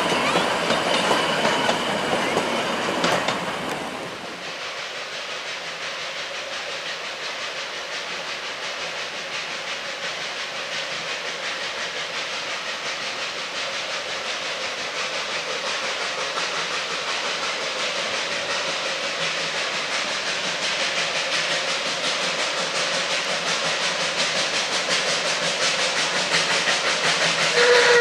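Narrow-gauge steam train rolling past close by: wooden carriages' wheels clicking steadily over the rails. About 4 seconds in the sound drops, then slowly grows louder as the steam locomotive, hissing steam, passes and more carriages rattle by.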